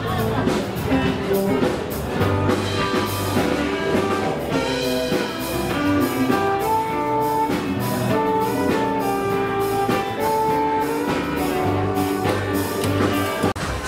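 Instrumental background music with a steady drum beat and a melody, which breaks off briefly near the end.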